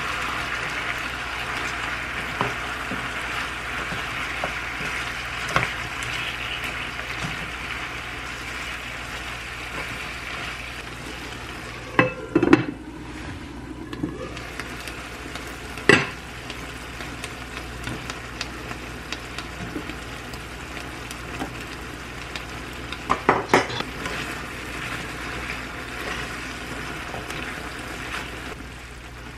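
Chicken and vegetables in gochujang sauce sizzling steadily in a frying pan, a little louder at first. Several sharp clinks of the glass lid and utensils against the pan come about 12 and 16 seconds in, and a quick cluster comes around 23 seconds.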